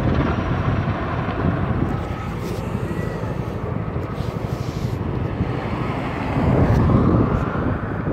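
Firefighting helicopter's rotors and engines droning steadily as it flies off, with wind on the microphone that swells about two-thirds of the way in.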